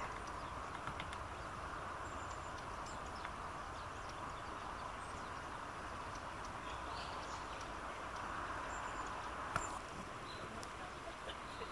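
Steady outdoor background noise with a few faint, short, high bird chirps, and a single click near the end.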